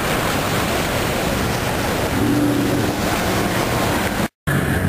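Wind buffeting the handheld camera's microphone over steady city street noise, with a brief low hum about two seconds in. The sound cuts out abruptly for a moment near the end.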